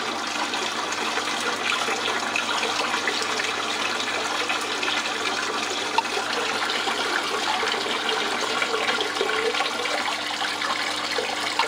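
Water running steadily in a thin sheet over a DIY miller table, a gold-concentrate cleaning table, washing black sand across the sloped deck. A steady low hum sits under the water, and there is a single sharp click about six seconds in.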